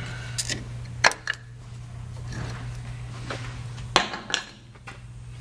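Metal clunks and clinks as a large four-piston Brembo brake caliper is worked over the brake rotor and onto the knuckle: a few sharp knocks, the loudest about a second in and again near four seconds, over a steady low hum.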